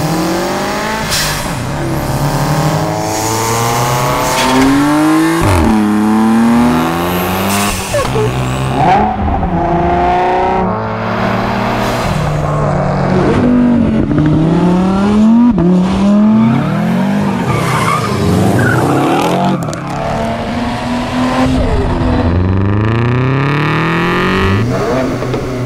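Sports car engines and exhausts revving hard under acceleration: the engine pitch climbs again and again and drops back at each gear change, with a few sharp cracks and a whoosh as cars pass.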